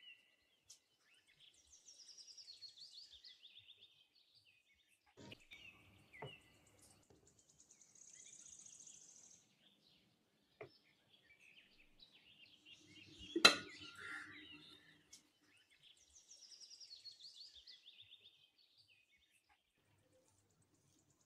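Faint birds chirping in short repeated phrases, with a few scattered knocks and one sharp metallic clack about two-thirds of the way through as the metal roll pan is handled while it is greased with oil.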